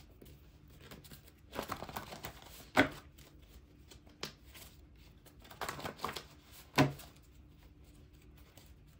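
Paper cards being shuffled and laid down on a table: brief rustling in two spells, each ending in a sharp tap as a card hits the table, about three and seven seconds in.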